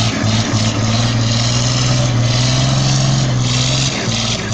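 Excavator's diesel engine running steadily at high revs, easing off about four seconds in.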